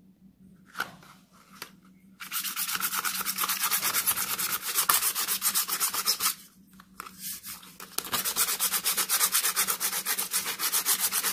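Quick back-and-forth sanding strokes on a thin metal aerosol can, in two spells of about four seconds each with a short pause between.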